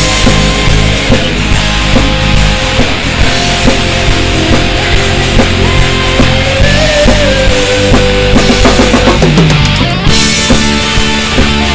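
Loud rock band playing an instrumental passage with electric guitar and drum kit, a lead guitar line sliding in pitch; the band briefly drops out about ten seconds in and comes straight back.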